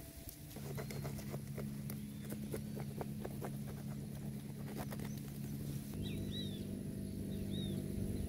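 Quick clicks and taps of a knife cutting on a small board for about five seconds, over low, steady synth background music. A few short bird chirps come near the end.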